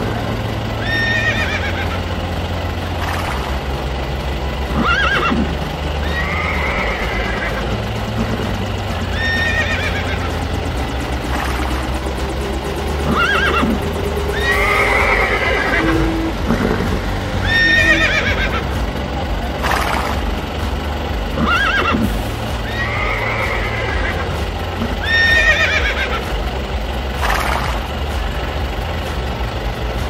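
Horse neighing and whinnying over and over, one call every couple of seconds, laid as sound effects over the toy horses.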